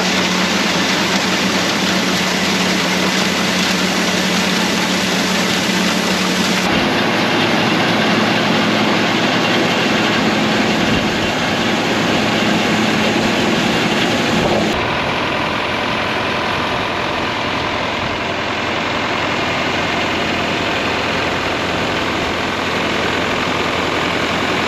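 A tractor engine runs steadily while driving a feed grinder, a loud, even mechanical drone with a low hum. The sound changes abruptly twice, about 7 and 15 seconds in.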